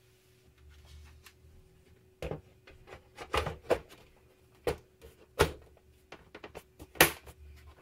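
Plastic top cover of an Apple Macintosh LC being set onto the case and pressed down into place: a series of sharp plastic knocks and clicks starting about two seconds in, the loudest near the end.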